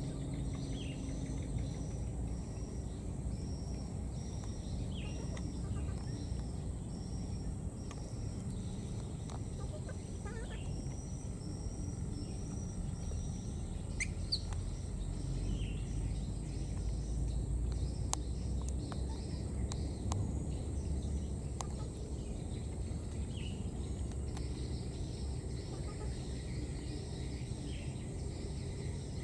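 Outdoor ambience: a short high chirp repeated about twice a second, fading after the first half, with a few short falling calls and a low rumble underneath.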